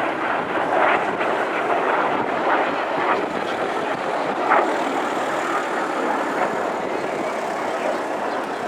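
Aircraft engine noise from an air show display, a steady rushing drone with no marked rise or fall.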